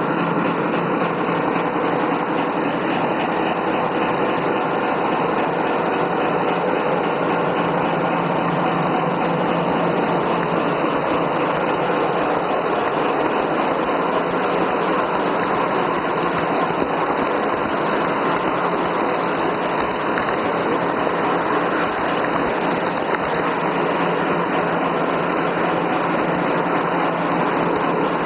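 Gauge 1 model of a double-headed DB Class 211 (V100) diesel locomotive pair running with a long train of wagons: a steady mechanical running sound from the locomotives and the wagons rolling on the track, even and unchanging throughout.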